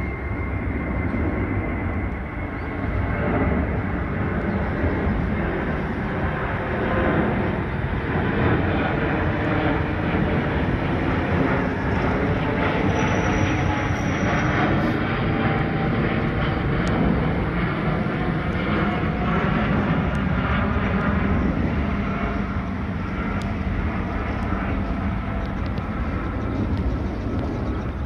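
Airbus A350 jet engines running as the airliner flies overhead and climbs away: a steady jet roar with deep rumble.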